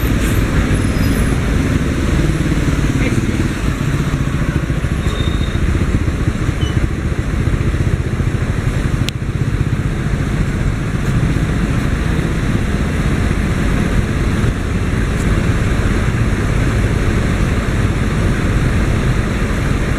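Steady road noise of moving vehicles: a continuous low engine and tyre rumble with no horn blasts.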